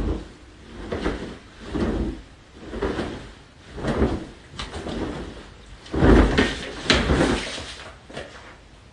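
A large quilt being flapped up and down by hand, a soft whoosh of fabric about once a second, with the strongest swishes in the second half.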